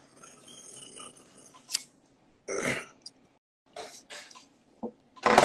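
A man's throat and breath sounds close to a phone microphone: a few short noisy bursts with small clicks between them, the loudest near the end.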